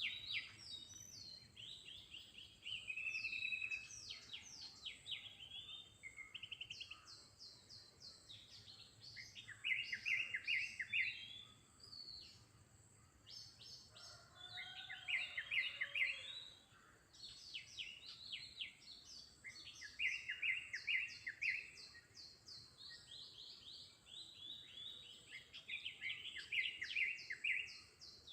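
Birds chirping: rapid series of short, high chirps in bursts of a second or two, repeating every few seconds over faint outdoor background noise.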